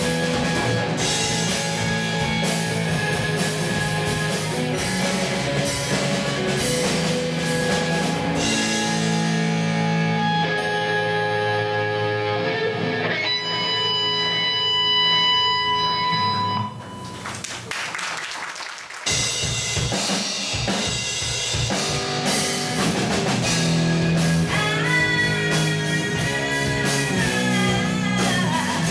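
Live rock band playing electric bass, electric guitar and drum kit, with held notes; about two-thirds in the band drops back for a couple of seconds before coming back in full.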